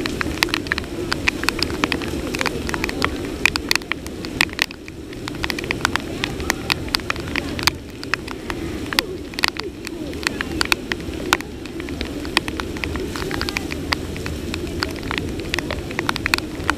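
Heavy rain falling, with many irregular sharp taps of drops striking close to the microphone over a steady wash.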